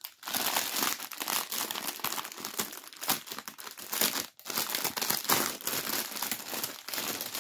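Clear plastic packaging crinkling and rustling as a bag of diamond-painting drill packets is handled and lifted, with an uneven crackle and a brief pause a little past four seconds.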